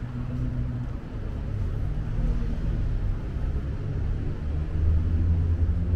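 A motor vehicle's engine rumbling with a low, steady hum, growing louder over the last couple of seconds as it comes closer.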